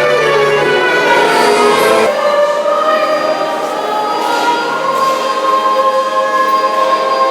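Choir singing in long held notes; about two seconds in the deep bass drops out and the chord changes.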